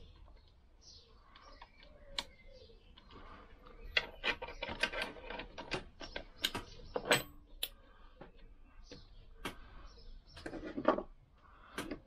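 Irregular light metallic clicks and taps as nuts are run onto the studs of a Lambretta scooter's gearbox end plate by hand, busiest in the middle, with a louder clatter of small metal parts near the end.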